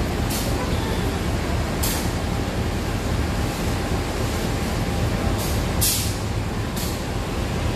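Diesel locomotive standing at a station, running with a steady low rumble, with about five short hisses of air at irregular intervals.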